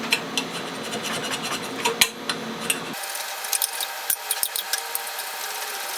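A chisel scraping a sticker off aluminum flat bar: a run of short, irregular metal scrapes and clicks.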